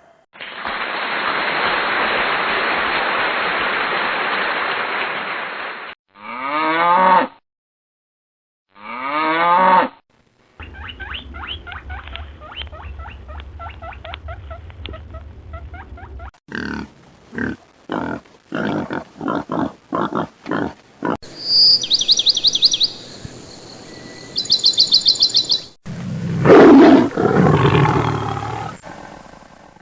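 A sequence of different animal calls, cut one after another. It opens with a long rough noisy call, then two short falling cries, a stretch of rapid notes over a low hum, a quick string of sharp calls and high trills. It ends with loud, deep roars from a big cat.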